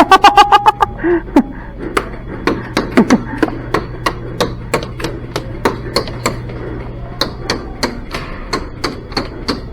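Airsoft guns firing: a fast automatic burst in the first second, then single shots at about three a second.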